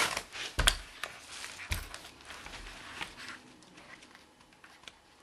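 Three thumps and knocks in the first two seconds, then fainter rustling and small clicks that fade away: a person moving about and handling gear close to the microphone.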